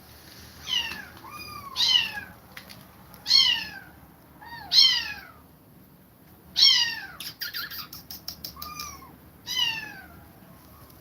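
Kittens meowing: about nine short, high-pitched meows, each falling in pitch, with a run of quick clicks in the middle.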